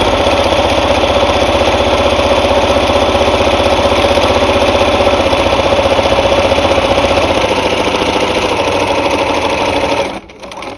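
Sewing machine running steadily at speed, stitching a zigzag, then stopping about ten seconds in.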